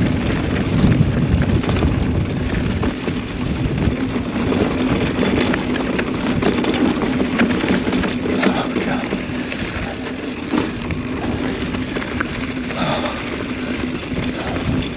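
Mountain bike running fast down a bumpy, hard-packed dirt trail: wind rushing over the microphone, tyre noise and the bike rattling, with many small knocks from the bumps.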